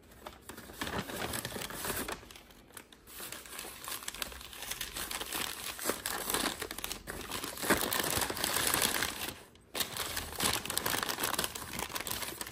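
Tissue paper crinkling and rustling as it is pulled out of a paper shopping bag, continuous apart from a brief break about three-quarters of the way through.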